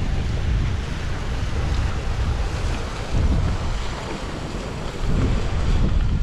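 Wind buffeting a GoPro's microphone: an uneven low rumble over a steady hiss.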